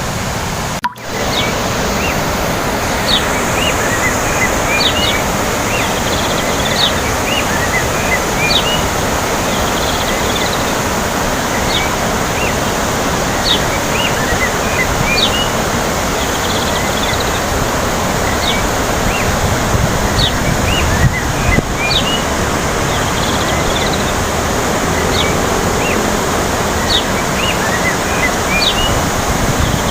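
Steady rush of water with wind noise. Over it, short high chirps repeat about every two seconds, like a bird calling. A brief dropout comes just before one second in.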